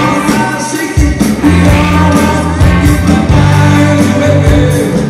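A band playing rock music with a singer, over a steady bass line and drum hits.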